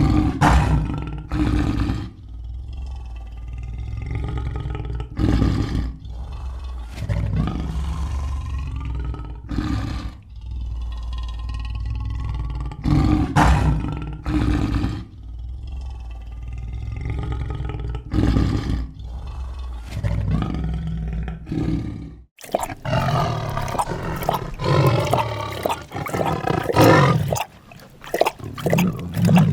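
A large animal roaring in a series of loud, deep calls about a second or two apart, cut off abruptly about three-quarters of the way through by a different, higher-pitched animal call.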